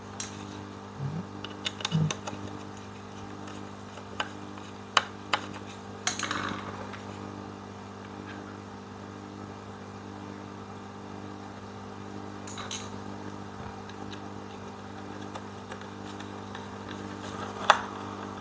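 Scattered light knocks and clicks of wooden rack parts being handled and fitted together, over a steady low hum. Several come in the first few seconds, a few more follow sparsely, and one sharper knock falls near the end.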